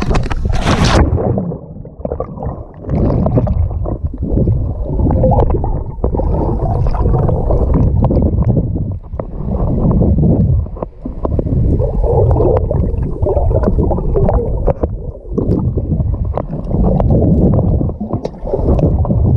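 Muffled rushing and gurgling of pool water close to the microphone, coming in surges every two seconds or so.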